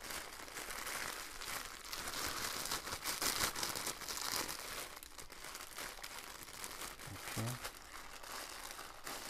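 Clear plastic packaging crinkling and rustling continuously as a bundle of small resealable bags of diamond-painting drills is handled inside its outer plastic bag.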